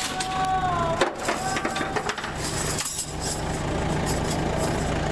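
An engine runs steadily with a low hum. A drawn-out pitched cry comes at the start and again about a second in, and a flurry of clicks and knocks falls between about two and three seconds.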